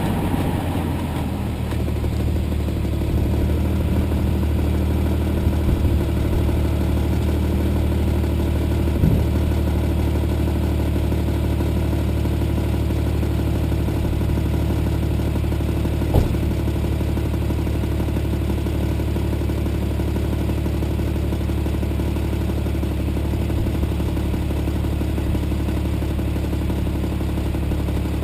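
BMW 330i's 3.0-litre straight-six running at a steady speed, a constant drone with two sharp clicks well apart. The car has a reported ratcheting, clicking noise when cruising at high rpm.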